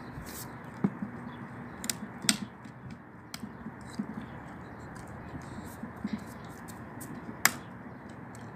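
A dog gnawing and biting a chunk of old wood: irregular clicks and crunches of teeth on wood, with a few sharper snaps, the loudest near the end.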